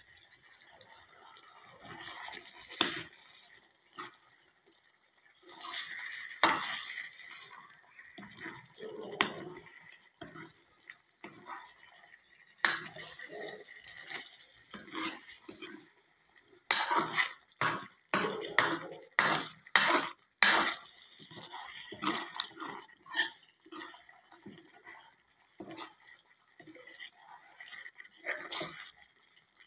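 Metal ladle scraping and knocking against a kadhai while stirring chicken curry, in irregular strokes with a quick, loud run of clinks a little past halfway, over the wet sizzle of the thick gravy.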